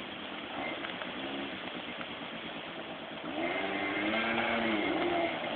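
Quad bike engine revving, its pitch rising and falling, and growing louder about three seconds in as the quad comes closer.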